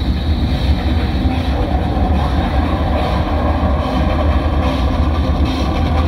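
Loud, steady low rumble from a passing sound-system truck, heavy bass from its speaker stacks together with the truck's own running. Near the end, brighter, higher sound comes in over the bass.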